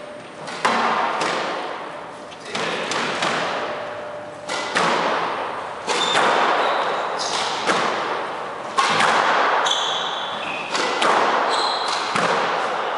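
Squash rally: the ball is struck by rackets and smacks off the walls about once a second, each hit ringing around the enclosed court, with short squeaks of court shoes on the wooden floor in between.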